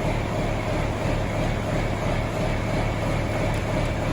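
John Deere 4440 tractor's diesel engine running steadily at constant speed.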